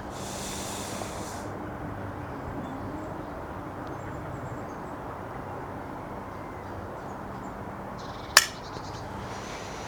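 Quiet room tone with a faint steady hum, broken about eight seconds in by a single sharp dry click: the Snowpeak PP20 air pistol's trigger releasing without a shot, because the pistol was not properly cocked.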